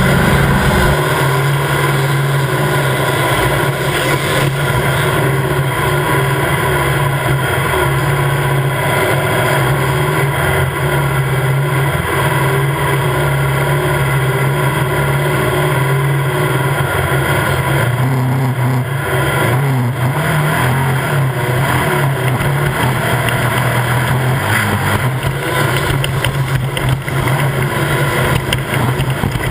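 Engine of an off-road race vehicle running hard at steady, high revs under a constant rush of wind and terrain noise, the pitch dipping briefly a couple of times in the second half.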